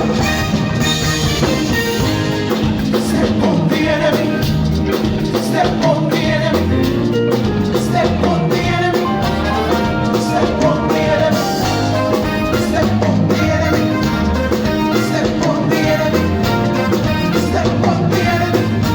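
Live band music with a drum kit keeping a steady beat under a moving bass line.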